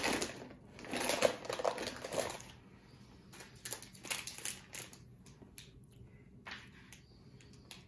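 Plastic snack wrapper crinkling and rustling as it is pulled from a box and handled: a dense burst of crackling about a second in, then scattered crinkles and clicks.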